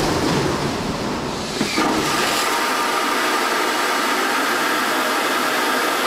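Airbus A380 vacuum toilet system flushing: a loud, steady rush of air and waste being sucked through the long vacuum pipe toward the waste tank, with a faint whistle in it. The sound shifts from a lower rumble to a higher rush about two seconds in.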